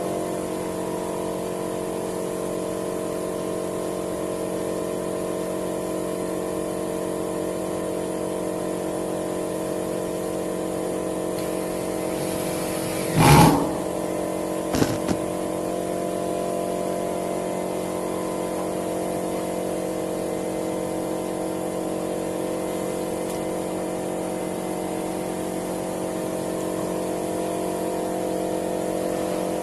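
Steady machine hum made of several constant tones, with a single loud knock about halfway through and a couple of faint clicks just after it.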